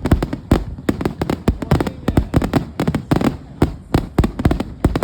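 Aerial fireworks bursting in quick succession: a dense run of loud bangs, several a second, overlapping and echoing.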